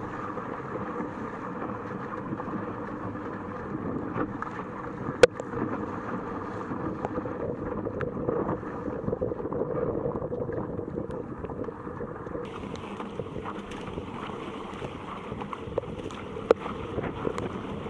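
Water rushing and splashing along the bow of a sea kayak running downwind through choppy sea, with steady wind noise on the microphone. A few sharp clicks cut through, the loudest about five seconds in and another near the end.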